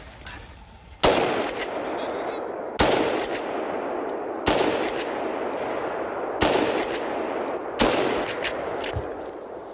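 Hunting rifle fired five times in quick succession at running wild boar, a shot every one and a half to two seconds. Each shot leaves a long echo through the woods.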